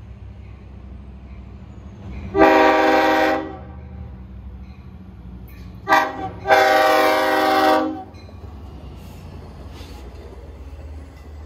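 LIRR DE30AC diesel locomotive's air horn sounding a long blast, then a short one and another long one: the end of the grade-crossing warning as the train reaches the crossing. Under the horn the diesel engine and the bi-level cars rumble steadily as the train rolls past.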